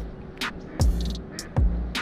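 Background electronic music with a steady drum-machine beat: kick drums falling in pitch, short high ticks, and a steady bass line.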